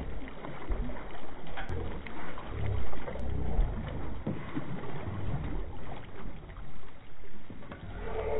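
Water splashing and sloshing against the side of a boat as a large striped bass is netted and lifted out of the water, with irregular low thuds.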